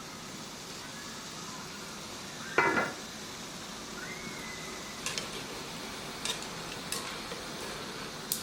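Food sizzling steadily in a pan, with one loud ringing metal clank of a utensil against the pan about two and a half seconds in. Several lighter sharp taps follow in the second half.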